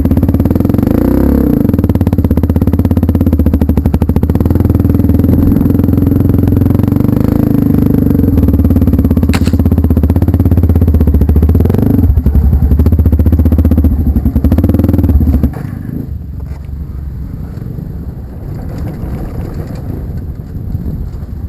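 Off-road trail motorcycle engine running loud and close, with a fast, even firing pulse. About fifteen seconds in it drops sharply to a quieter, steady running sound.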